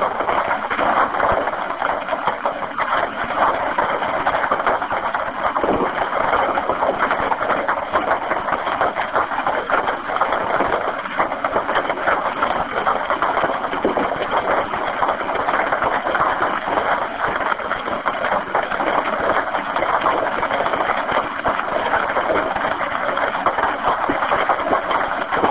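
House fire roaring and crackling, heard as a steady loud rushing noise over an open telephone line.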